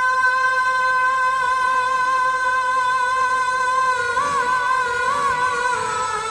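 A man singing a verse of Urdu poetry unaccompanied into a microphone, holding one long high note, then ornamenting it with small wavering turns before it falls away near the end.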